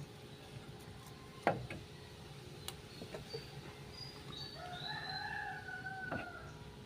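A rooster crows once in the background, a single drawn-out call lasting well over a second, about two-thirds of the way through. A sharp knock about a second and a half in is the loudest sound, with a few lighter taps after it.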